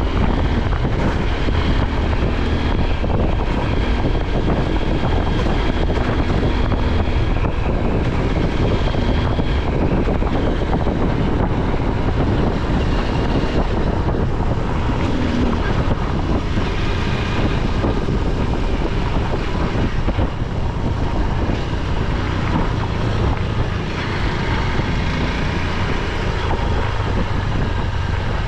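Motorcycle being ridden: its engine runs under heavy wind rush on the microphone, the engine pitch shifting a little now and then.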